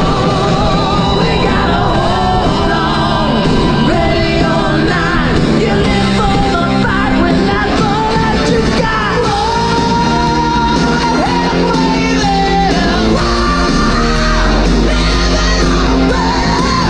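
Background music: a rock song with a singer over a steady bass line.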